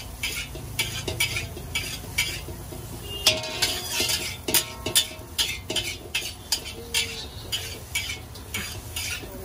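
Metal spatula scraping and clanking against a large iron wok as noodles are stir-fried, about two to three strokes a second, with the food sizzling underneath.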